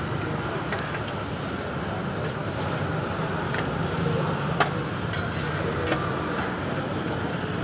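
Steady street noise of road traffic, with a sharp short click a little past halfway and a fainter one about a second later, like steel utensils knocking.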